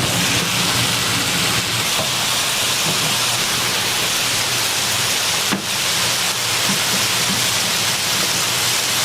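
Steady sizzling hiss of food frying in hot oil, with a brief knock about five and a half seconds in.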